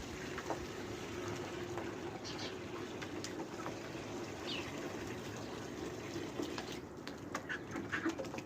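Water running into a poultry water dish as it is filled, a steady splashing flow that eases off about seven seconds in. Faint chirps from the birds are heard over it.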